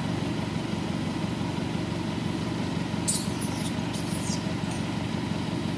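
An engine running steadily at idle, a low even hum, with two brief high-pitched sounds about three and four seconds in.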